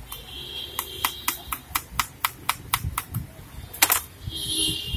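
Kitchen knife slicing a cucumber against a steel board, a quick run of even clicks about four a second, then a louder double knock about four seconds in. A steady high-pitched tone sounds in the background at the start and near the end.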